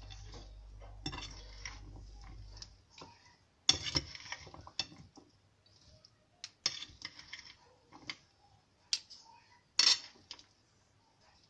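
A metal spoon and fork tossing salad in a ceramic bowl: irregular clinks and scrapes of the utensils against the bowl over the rustle of lettuce and chopped vegetables, with sharper clinks about four and ten seconds in.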